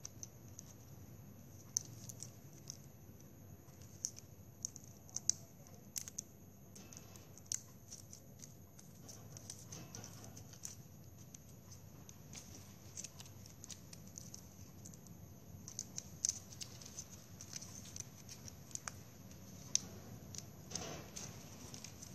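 Plastic drinking straws being handled: faint, irregular small clicks and crinkles as cut straw pieces are pushed one after another into a straw stem.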